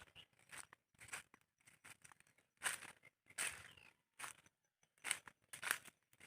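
Footsteps crunching and rustling through dry leaves and undergrowth: irregular crunches about once or twice a second.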